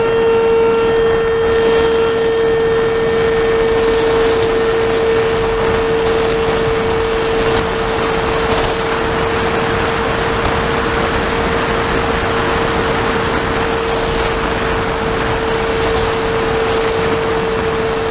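Electric motor and propeller of an Arrows Prodigy RC plane running at a steady high pitch, heard from on board the plane. A constant rush of wind over the microphone builds up in the first few seconds of flight.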